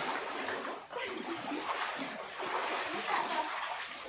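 Water splashing and sloshing in a rock cave pool as a swimmer moves through it.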